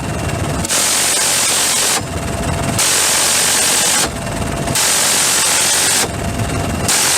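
M134 six-barrel minigun firing repeated bursts of about a second and a half each, roughly every two seconds, each a dense ripping buzz. A lower rumble runs in the gaps between bursts.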